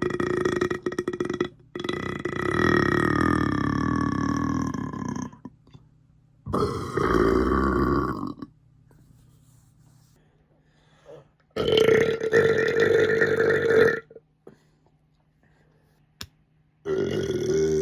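A person's loud burps in a series, one after another: one ends just after the start, a long one of about three and a half seconds follows, shorter ones come about six and twelve seconds in, and another begins near the end.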